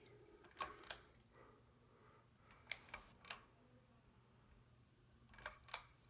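Near silence: a quiet room with several soft handling clicks, some in pairs, from the camera being moved.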